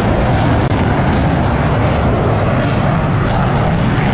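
Aircraft engine noise at an airshow, loud and steady, with no clear change in pitch.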